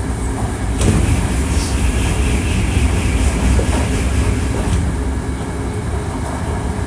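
Hankyu 1300 series electric train car running, heard from on board: a steady low rumble of wheels on the track, with a sharp crack about a second in followed by a few seconds of louder hiss.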